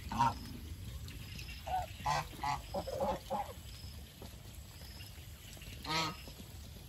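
Domestic geese honking in short calls, several in quick succession in the first half and one louder call about six seconds in.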